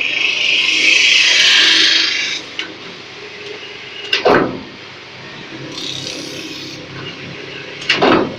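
CNC metal spinning lathe forming sheet metal over a spinning mandrel, the roller tool pressing on the metal with a loud high hiss for the first two seconds, fainter again around six seconds, over a steady machine hum. Two short sweeps falling sharply in pitch come about four and eight seconds in.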